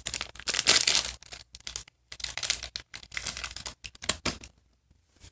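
Small plastic accessory bag from an L.O.L. Surprise toy being torn open and handled, with irregular crinkling and tearing that dies away near the end.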